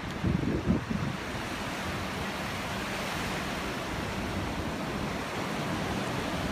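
Ocean surf breaking and washing on a beach, a steady rushing hiss, with wind buffeting the microphone in low rumbles near the start.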